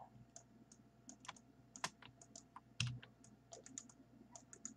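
Faint, irregular clicking of a computer keyboard and mouse, many small clicks, with one soft low thump just under three seconds in.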